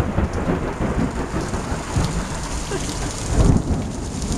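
Thunder rolling over steady rain: a sudden loud crack at the start, then low rumbles that swell again about three and a half seconds in.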